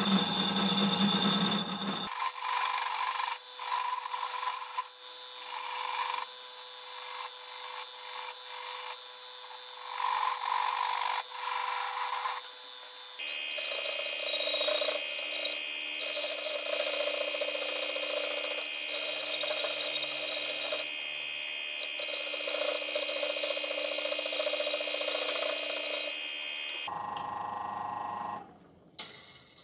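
Drill press running, spinning a plywood pulley blank on a threaded-rod arbor while a hand-held tool is pressed against its rim, rubbing and scraping a V-groove into the wood. The machine's steady whine jumps in pitch abruptly a couple of times, and the sound stops near the end.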